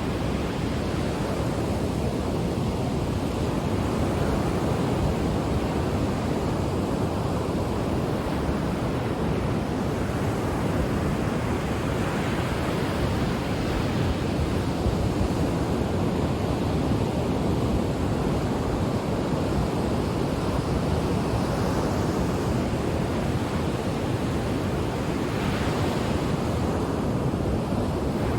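Ocean waves washing on the shore: a steady, even surf noise with gentle swells as waves break, with some wind.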